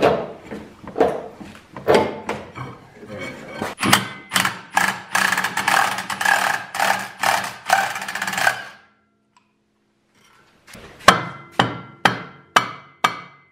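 Cordless impact wrench rattling on the bolt of an Arctic Cat F1100 snowmobile's secondary clutch, with a few knocks before it and a steady run of about five seconds. After a short pause comes a run of sharp knocks: a mallet striking the clutch to free it from the shaft, where it is pressed on.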